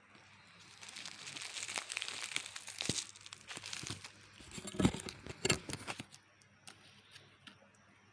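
Crinkling and rustling of packaging being handled, with a few sharp knocks about five seconds in.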